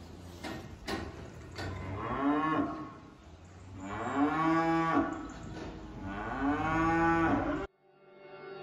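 Cattle mooing: three long moos, one after another, each rising and then holding steady, with a couple of sharp knocks in the first two seconds. The sound cuts off abruptly near the end.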